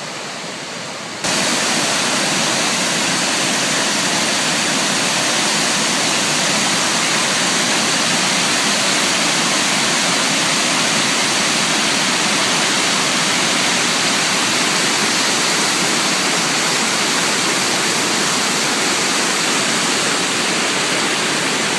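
Waterfall, a steady rush of falling water that jumps suddenly louder about a second in and then holds level.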